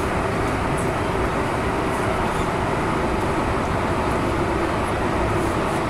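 Steady running noise of an MTR M-Train, heard from inside the passenger car: an even rumble with a faint steady hum through it.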